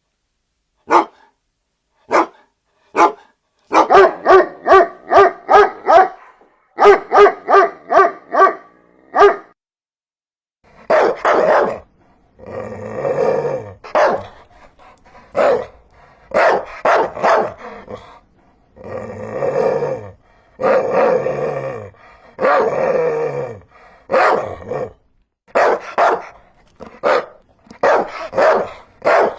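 Dog barking. First come single sharp barks about a second apart, then a fast run of barks about three a second. After a short pause the barks are longer and deeper, spaced about one to two seconds apart.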